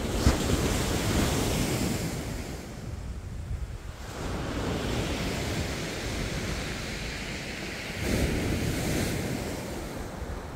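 Waves breaking and washing up a shingle beach, with wind rumbling on the microphone. The noise swells at the start and again about eight seconds in.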